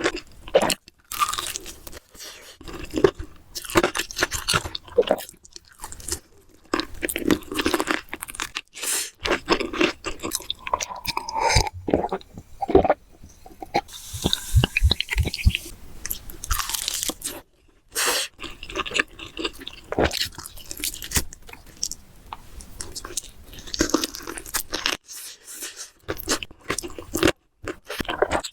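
Close-miked crunching and chewing of crispy fried chicken: repeated bites through the crackling breaded skin, each followed by wet chewing, in an irregular run.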